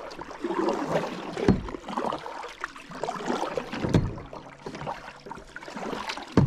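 Double-bladed paddle stroking a plastic sit-on-top kayak along, the blades splashing and dripping in the water, with three low thumps spaced about two and a half seconds apart.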